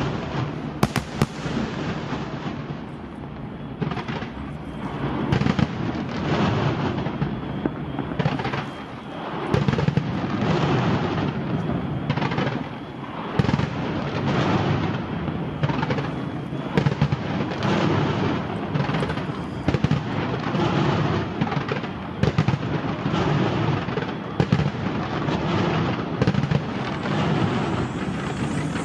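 Aerial fireworks display: a continuous barrage of shell bursts and booms mixed with dense crackling, with frequent sharp bangs.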